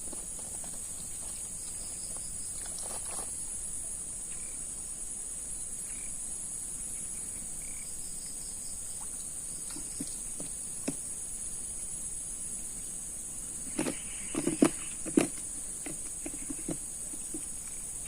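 Steady high-pitched drone of insects, crickets or cicadas, with a handful of sharp knocks and clatter about fourteen to fifteen seconds in.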